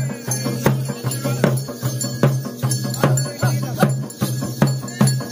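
Double-headed barrel drums (dolu) beaten in a steady folk rhythm, a heavy low beat about every 0.8 s with lighter strokes between, with metallic jingling over the top.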